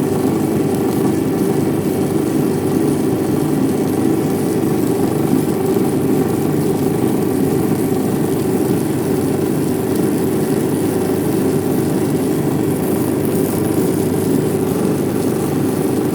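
A steady motor hum, running evenly without change.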